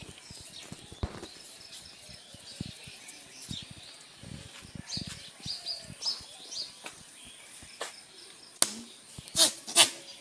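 Goats' hooves scuffing and knocking on a paved path as a buck mounts a doe, with small birds chirping in the background. Three loud sharp noises near the end.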